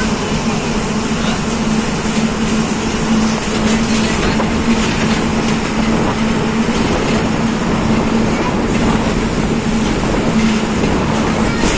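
Steady running noise of a moving vehicle heard from inside, a dense rush with a constant low hum underneath.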